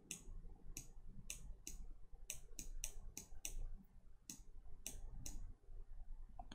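Computer mouse buttons clicking faintly and irregularly, about three clicks a second, as they are pressed and released over a faint low hum.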